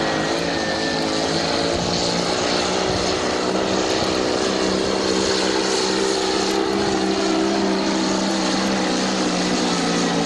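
Pulling tractor's engine at full throttle under load while dragging a weight-transfer sled, a loud steady drone that holds one pitch.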